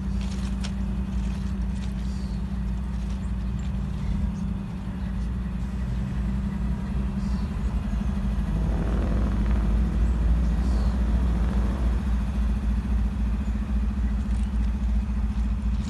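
EMD GP38 diesel locomotive's engine running with a steady low throb, growing louder for a few seconds about eight seconds in.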